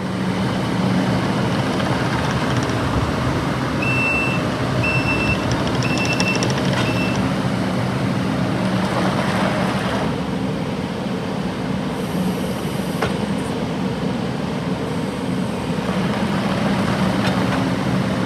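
Kubota SVL97-2 compact track loader's diesel engine running steadily. A reversing alarm beeps four times, about once a second, some four seconds in.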